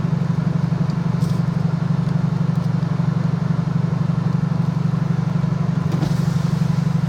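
A car running, heard from inside the cabin: a steady low drone with a fast even pulse.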